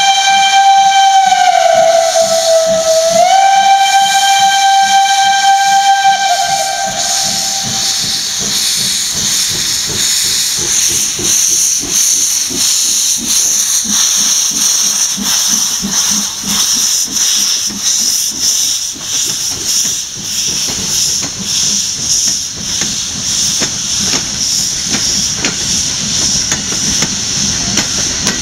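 Steam locomotive 109.109 sounding its whistle in one long blast that sags in pitch for a moment a couple of seconds in, then rises again and stops about six seconds in. The engine then pulls out with rhythmic exhaust beats and a steady hiss of steam from its open cylinder cocks, its train of coaches rolling past behind.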